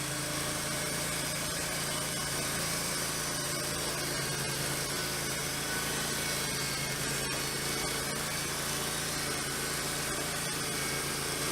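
Wood-Mizer portable band sawmill running steadily, its engine-driven band blade cutting a flitch off a pine log.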